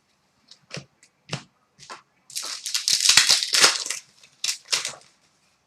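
Hockey trading cards and their packaging being handled: a few sharp snaps and flicks of cards, then about a second and a half of crinkling and tearing of pack wrapping, then two more snaps.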